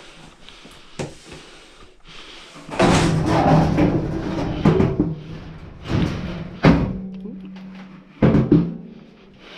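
Knocks, thumps and clatter of dryer drum and cabinet parts being handled, with a busy stretch of rattling about three seconds in and sharp knocks near the end.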